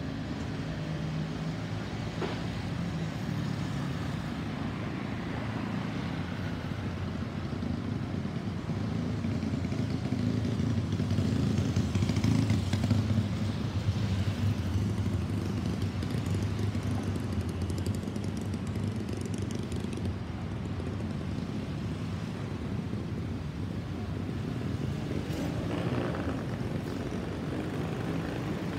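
Boeing 737-800 jet airliner passing high overhead: a low, steady rumble from its CFM56-7B turbofan engines that swells to its loudest about halfway through, then slowly fades.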